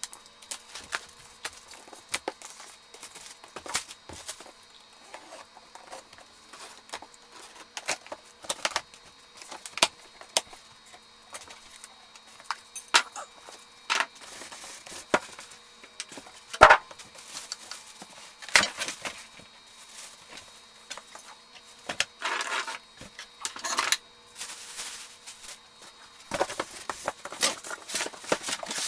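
Irregular knocks, clicks and rattles, with a faint steady hum underneath; the loudest knock comes just past the middle, and the knocks bunch together near the end.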